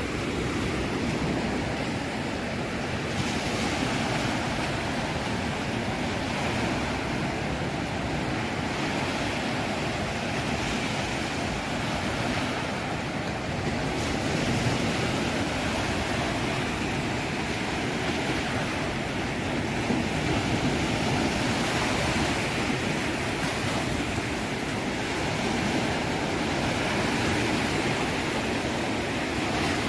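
Sea surf breaking and washing up a sandy beach: a steady rushing of small waves that swells and eases.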